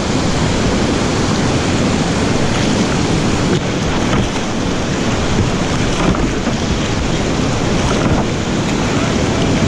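Whitewater rapids rushing steadily and loudly around a kayak, heard close up from a camera on the boat.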